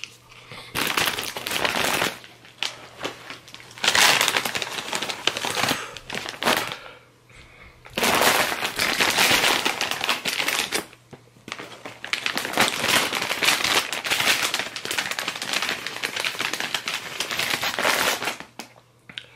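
Plastic Takis Blue Heat chip bag crinkling as it is handled, in long bouts with short pauses between.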